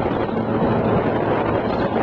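Motorboat running steadily under way: a constant engine hum under a rush of wind buffeting the microphone.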